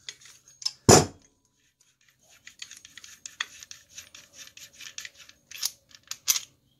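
A single loud knock about a second in as the sprocket nut on a BMX crank spindle is worked with channel-lock pliers, then a quick run of light scratchy clicks as the loosened nut is spun off the spindle threads by hand.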